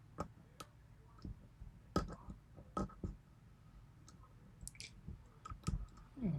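Irregular, sharp clicks of a lock pick and tension wrench working the pins inside a 6-pin Yale pin-tumbler lock, about a dozen over a few seconds, the loudest about two seconds in.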